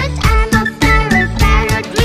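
Upbeat music with a steady, fast beat and a melody that bends in pitch.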